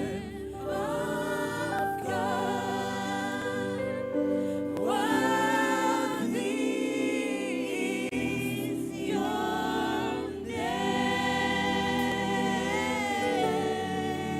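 Gospel worship music: a slow song sung by several voices together over sustained keyboard chords, in long held phrases.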